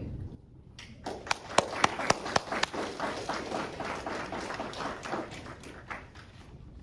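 Small audience applauding: sharp claps start about a second in, loudest at first, then thin out and fade.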